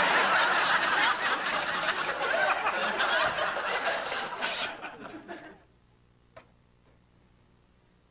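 Sitcom audience laughing after a punchline, dying away about five and a half seconds in, followed by near silence with one faint click.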